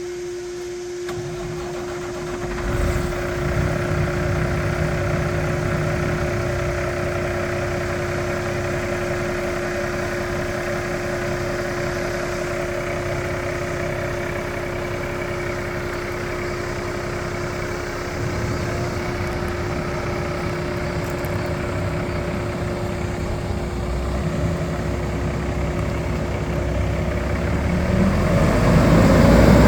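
Diesel engine of a Peterbilt 389 tractor truck idling steadily with a constant whine over the low rumble; near the end it revs up, louder and rising in pitch.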